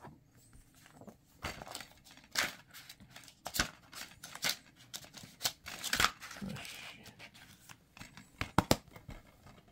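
Handling of a DVD case and its paper insert: paper rustling and plastic clicks, with two sharp snaps of the plastic case close together near the end.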